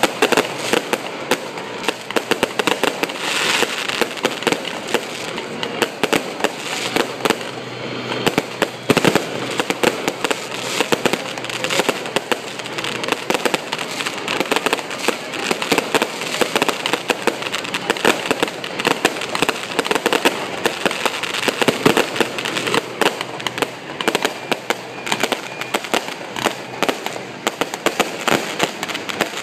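Aerial fireworks going off in a dense, unbroken barrage of rapid bangs and pops.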